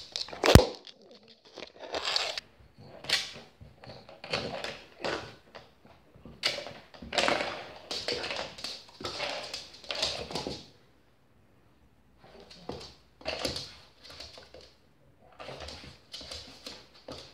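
A sharp thump about half a second in, then irregular scuffling and knocking as a French bulldog paws and noses a plastic dinosaur toy across a laminate floor.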